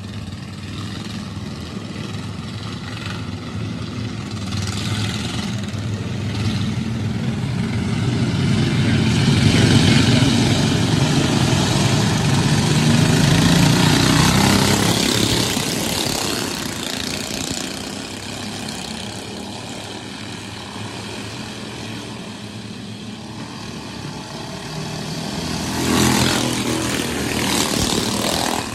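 Engines of a field of small dirt-track race cars circling the track. The sound swells as the pack runs in formation past the flag stand, loudest around ten to fifteen seconds in. It rises sharply again near the end as cars come by at speed.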